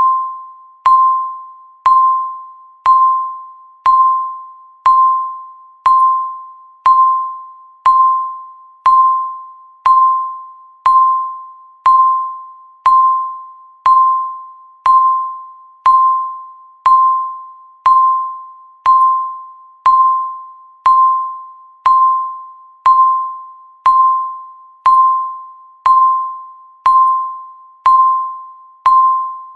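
Countdown timer sound effect: a single bell-like ding of one pitch struck once a second, each note fading away before the next, marking off the seconds.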